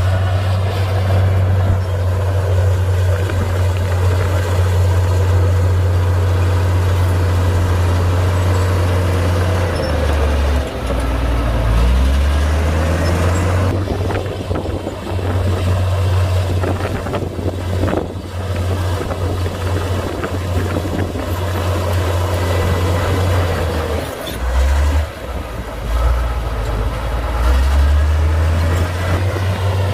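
Komatsu D58P bulldozer's diesel engine running loud and steady, its low note dipping and shifting twice: about ten seconds in and again about twenty-five seconds in.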